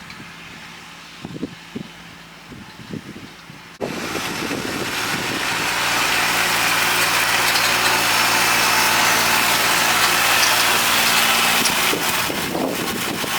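Kubota tractor's diesel engine running steadily while pulling a hay tedder, with a dense hiss of the tedder working and hay being spread. The sound is fainter at first and then jumps abruptly louder about four seconds in.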